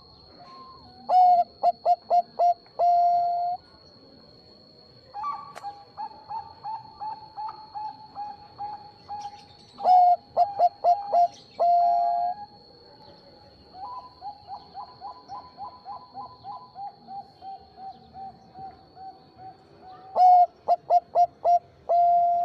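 Zebra dove (Bangkok perkutut) cooing: three loud phrases of quick staccato notes, each ending in a held note, with softer, longer runs of evenly spaced coos between them. A faint steady high-pitched whine runs underneath.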